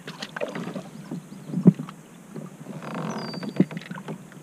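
Scattered knocks and bumps on a Hobie Pro Angler 14 fishing kayak as a small bass and gear are handled at the side of the boat, with a short rustling noise a little before three seconds in. A bird gives a brief falling whistle about three seconds in.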